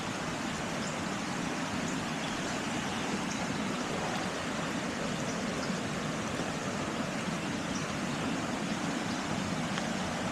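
Steady, even rush of pouring rain on the woods, mixed with the sound of running water.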